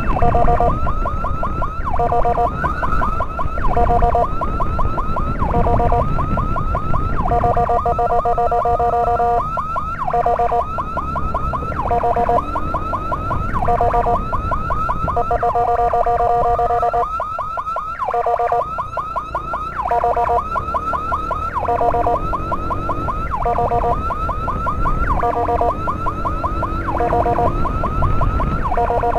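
Electronic emergency siren cycling over and over between a steady two-note tone and rapid rising-and-falling yelp sweeps, over the rumble of a moving motorcycle's engine and road noise.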